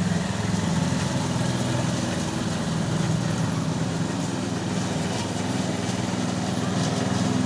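Walk-behind gas lawn mower engine running steadily while mowing grass.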